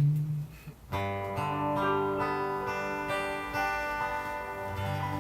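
Acoustic guitar strumming chords that ring out to close a song, starting about a second in; the tail of a held sung note fades just before it.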